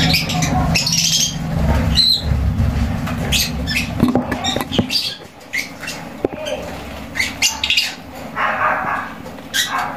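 African lovebirds chirping in many short, high calls, with a low hum underneath that stops about halfway through.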